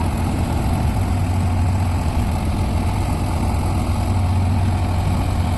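A heavy diesel machine's engine running steadily at idle, a constant low drone with no revving.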